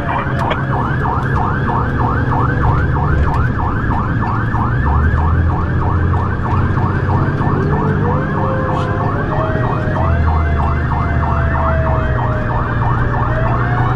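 A fire rescue truck's siren in a fast yelp, rising and falling several times a second, over the low rumble of the truck's engine. In the second half a slower, lower wailing tone glides up and down underneath.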